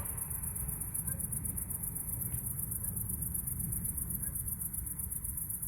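Insects chirping in a steady, fast, high-pitched pulse over a constant low rumble.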